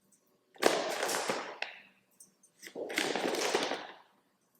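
Two bursts of dry, crackly rattling, each a little over a second long, as oiled almonds are shaken and coated with garlic powder.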